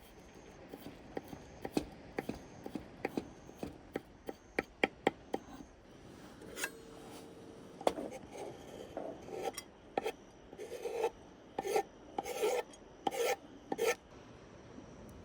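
A run of sharp taps and clicks, then a series of short rasping, rubbing scrapes in the second half.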